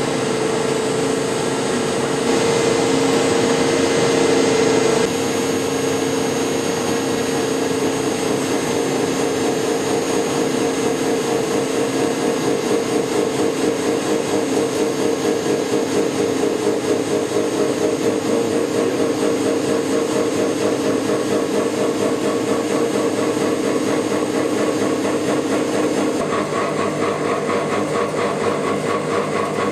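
Industrial machinery running steadily, a continuous mechanical noise with a constant mid-pitched hum through it. The sound shifts slightly a few times.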